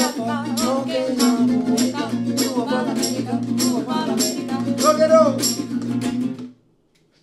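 Acoustic guitar and mandolin playing a lively Neapolitan song, with a woman and a man singing over a steady beat of sharp strummed strokes. The music stops suddenly about six and a half seconds in.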